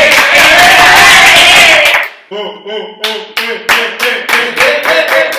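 A group of young men yelling loudly for about two seconds, then clapping their hands together in quickening claps while their voices carry on under them.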